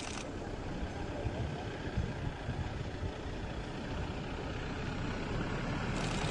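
Low rumble of an idling vehicle engine, growing a little louder near the end.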